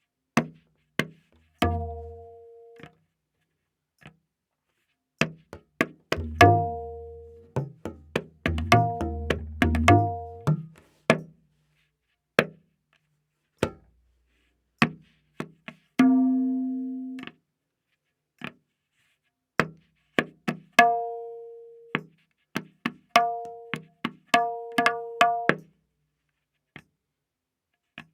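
Tabla playing a slow vilambit ektaal theka, one sparse stroke at a time with pauses between. The dayan, tuned to A sharp, rings on its open strokes, and the bayan adds deep, ringing bass strokes, clustered about two seconds in and again from about six to ten seconds in.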